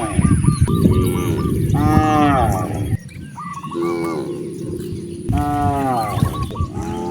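Cows mooing, several long calls one after another, overlapping. Between them runs a quicker string of short, higher calls from another animal.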